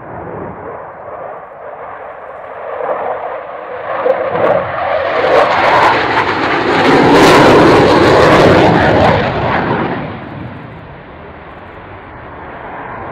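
Eurofighter Typhoon jet fighter, its twin EJ200 turbofans, making a loud flypast: the jet noise builds for several seconds, peaks a little past the middle, then fades away.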